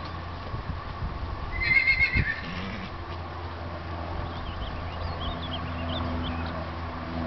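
A horse whinnying once, about two seconds in: a short, high, quavering call. A steady low hum runs underneath.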